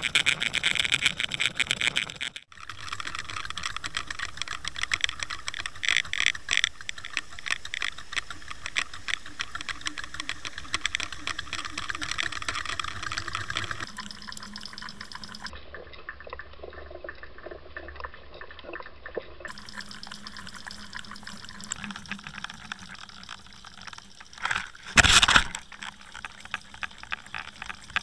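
Water rushing and gurgling past an underwater fishing camera's housing as it is pulled through the water behind a lure, changing abruptly a few times at the clip cuts. About three seconds before the end, a single loud knock: a muskie striking the camera.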